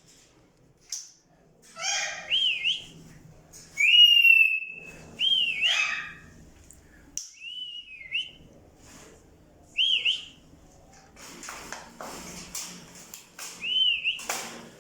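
Parrots whistling a short rising-and-falling note about six times, the longest and loudest about four seconds in, mixed with a couple of harsher squawks.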